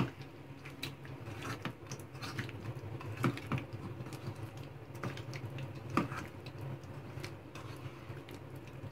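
A hand mixing boiled taro root pieces in a wet masala and curd paste in a stainless steel bowl: light, irregular clicks and taps of fingers and pieces against the steel. A few louder taps come about three and a half seconds in and again around six seconds.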